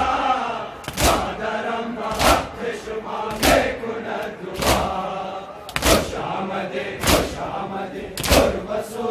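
Crowd of male mourners chanting a Muharram noha in unison, with a loud collective chest-beating (matam) slap about every 1.2 seconds, eight in all.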